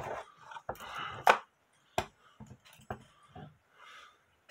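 Handling noise: a scattered series of clicks and light knocks as a cordless drill holding a wire pin is moved about and brought up to a brass clock movement. The loudest is a sharp click a little over a second in.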